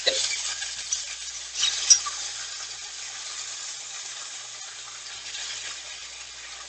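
Floured elk cube steaks sizzling in hot olive oil in a skillet as they are turned over, with a click at the start and a short louder sizzle burst about two seconds in.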